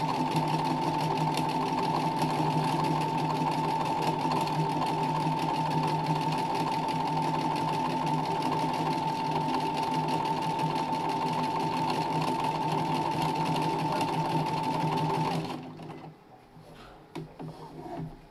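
Domestic sewing machine stitching free-motion embroidery, running steadily at speed with a constant hum. It stops about three-quarters of the way through, leaving a few faint clicks.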